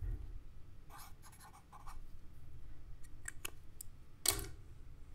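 Computer keyboard typing in short bursts of keystrokes, with one louder keystroke near the end.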